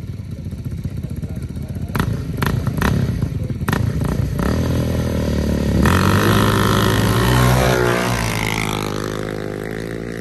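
Two ATV engines revving at the start line, then launching about six seconds in and accelerating hard away, engine pitch climbing, before the sound fades with distance near the end.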